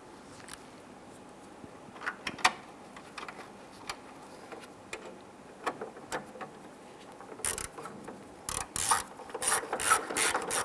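Hand ratchet clicking as screws are driven in to fasten a headlight-side corner light, at first only scattered handling clicks, then runs of rapid ratcheting from about seven and a half seconds in.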